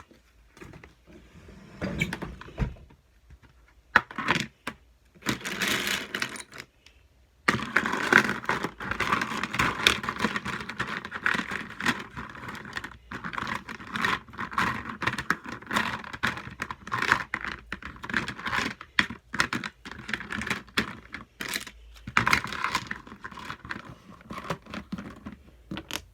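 Plastic markers clicking and clattering against one another as they are gathered and dropped into a box, a few separate clicks at first, then a dense steady clatter.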